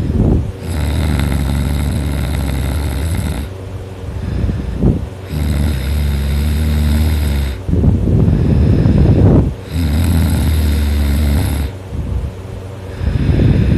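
A teenager snoring very loudly in a steady rhythm, about one breath cycle every four seconds. Each cycle alternates a steady droning stretch with a rough, pulsing snore.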